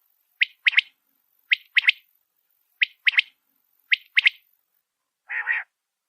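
Quail calling: a clear three-note phrase, one note then a quick double note, repeated about once every 1.2 seconds, four times. About five seconds in comes a single longer, lower, rougher call.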